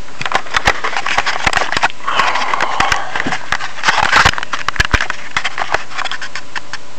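Handling noise from a handheld camera being moved, close to its microphone: a quick run of clicks and knocks, with scraping rustles about two seconds in and again around four seconds in.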